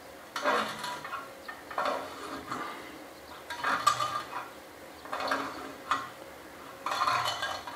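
Helicoil insertion tool being turned by hand to wind a coiled-wire thread insert into a freshly tapped oil-pan drain hole: light metallic scraping and clinking in about five short bouts, a second or two apart.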